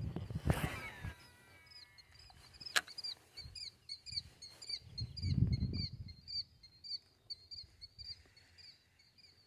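A bird calling with a rapid run of high, repeated chirps, several a second, starting about a third of the way in. A sharp knock comes near the start and a dull low rumble comes about midway.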